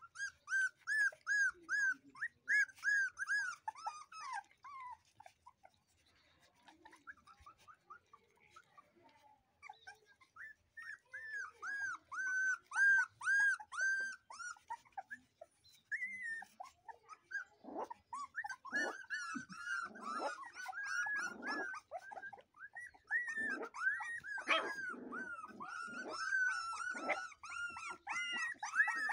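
Dogo Argentino puppies whining and yelping, high-pitched cries in quick runs of several a second: a run in the first few seconds, another near the middle, and a longer one through the last third, where lower growls join in.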